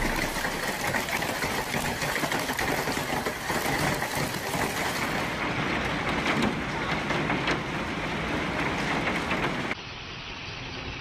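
Large hailstones pelting a wooden deck and a lawn: a dense, steady clatter of many small impacts over a hiss, turning quieter about ten seconds in.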